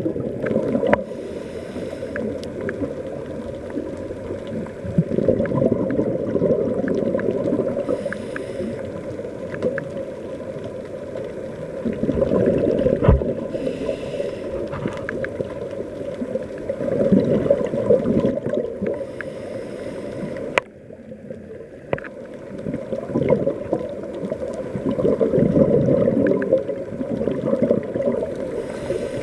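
Scuba diver breathing through a regulator underwater. A low bubbling rumble of exhaled air comes every several seconds, with a faint hiss of the inhale between the surges.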